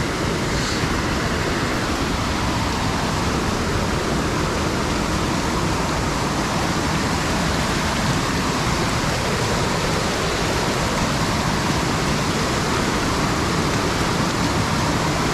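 Rushing mountain creek water: a loud, steady rush with no breaks.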